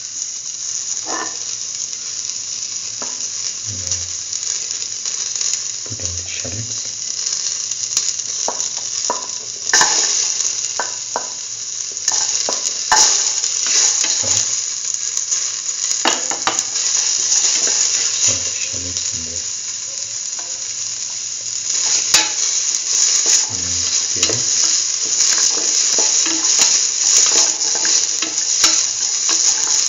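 Onion, garlic and ginger sizzling in hot oil in a stainless steel pan, with scattered clicks and scrapes of a spatula stirring against the metal. The sizzle grows louder about ten seconds in and again after about twenty-two seconds.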